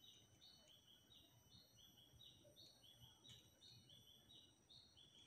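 Faint forest ambience: a bird repeating short, high notes that alternate between two pitches about three times a second, over thin, steady high-pitched tones.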